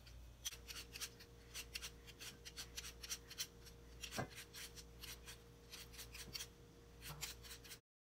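A vegetable peeler scraping the skin off a raw potato in quick, repeated short strokes. The sound cuts off suddenly near the end.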